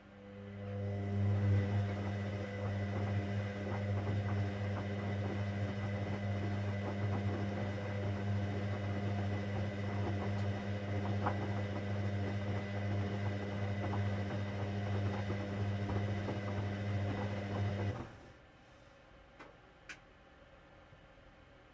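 Hoover Dynamic Next washing machine's pump running with a steady mains hum, cutting off suddenly about 18 seconds in.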